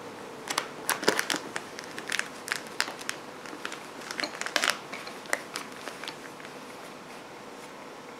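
Crinkly packaging of colour pencils and gel pens being handled and pushed into place, crinkling and crackling in irregular bursts that stop about six seconds in.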